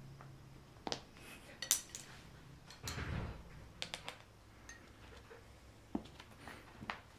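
Light, irregular clinks and taps on a kettlebell's chrome handle as a kitten bats at a wand toy around it, about six sharp knocks in all, with a short scuffle about three seconds in.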